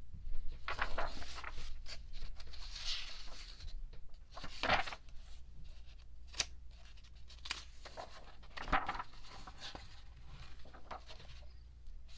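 Paper and cardboard being handled: intermittent rustling and light clicks as photo cards and packaging are moved, with a louder rustle about halfway through and another near three-quarters of the way.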